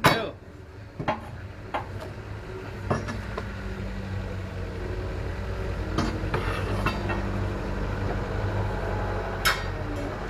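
Sharp knocks and clinks during truck loading, then from about three seconds in an engine running steadily, with one more knock near the end.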